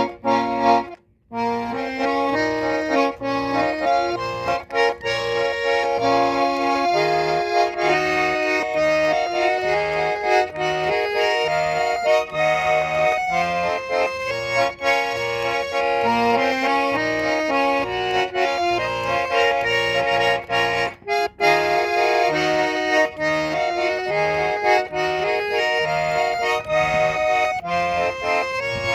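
Russian garmon (button accordion) playing a melody over a steady, pulsing bass-and-chord accompaniment. The playing breaks off briefly about a second in and dips again for a moment near the 21-second mark.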